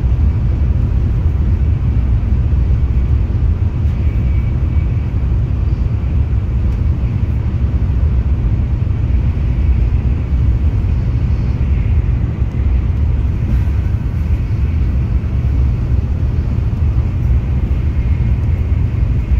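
Steady low rumble and running noise of a vehicle in motion, unbroken throughout, with a faint steady high tone above it.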